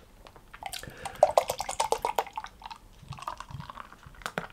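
Carbonated lager poured from a can into a glass: splashing and glugging with a crackle of fizz, starting about half a second in and stopping just before the end.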